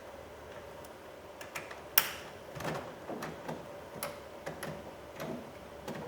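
Small plastic clicks and knocks from handling door-panel switch connectors, with one sharp snap about two seconds in as a connector clicks home.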